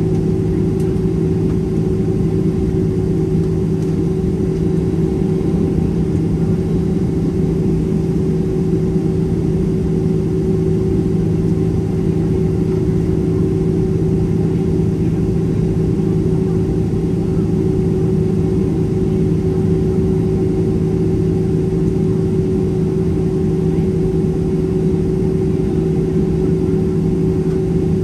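Boeing 767-300ER's wing-mounted turbofan engines idling while the airliner stands still, heard inside the cabin as a steady hum with a constant low tone.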